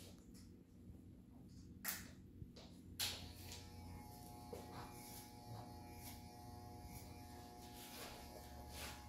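Electric hair clippers buzzing steadily and faintly as they cut a child's hair. Two sharp clicks come in the first three seconds, and the second one falls just where the higher buzzing sets in.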